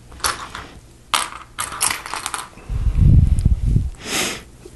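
Loose plastic Lego pieces clicking and clattering as they are set down on a tabletop, several sharp clicks in quick succession. A loud low thump about three seconds in, followed by a brief rustle.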